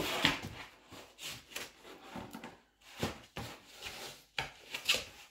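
Husky puppy moving about inside a cardboard box: irregular scraping and rustling of cardboard with short knocks, the loudest a thump right at the start.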